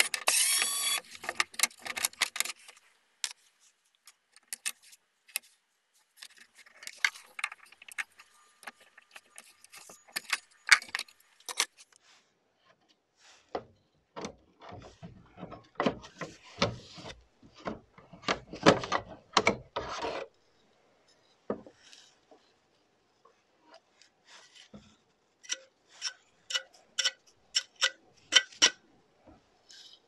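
An electric screwdriver whirs briefly at the start. Then come clicks, taps and rubbing from hands handling the PS5's plastic case and its cooling fan as the fan is worked loose and lifted out, with a series of light, evenly spaced clicks near the end.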